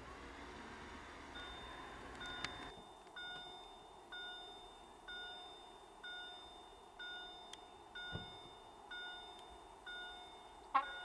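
Electronic level-crossing warning bell chiming about once a second, each strike ringing and fading. A low rumble dies away about two and a half seconds in, and a short chirp sounds near the end.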